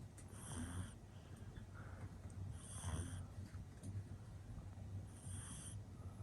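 Pug puppy snoring in its sleep: three snoring breaths about two and a half seconds apart.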